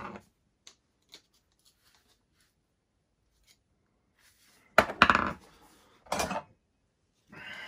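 Metal hand tools clattering against each other and the workbench: a few faint ticks, then two short clattering bursts about a second apart.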